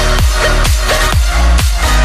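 Electronic dance music with a steady beat.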